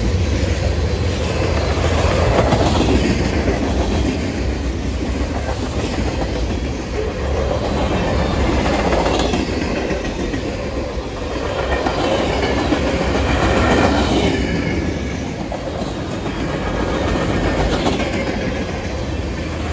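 Freight cars (tank cars, open gondolas and covered hoppers) rolling past, wheels clacking over the rail joints under a continuous rumble that swells and eases every few seconds.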